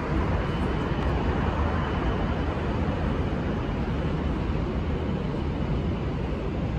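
Steady low rumble of a subway train running on the lower level of an elevated station, directly beneath.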